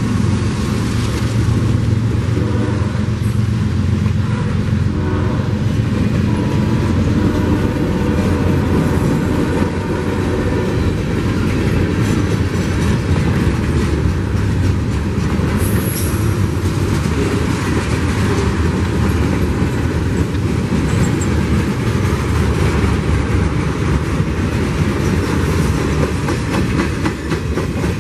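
Freight cars of a passing freight train rolling by: a loud, steady rumble with the clatter of wheels over rail joints. About halfway through there is a brief high-pitched squeal.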